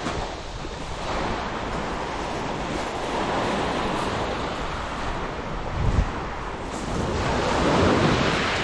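Small waves breaking and washing up a shingle beach, a steady rush that swells and ebbs, loudest near the end, with wind buffeting the microphone.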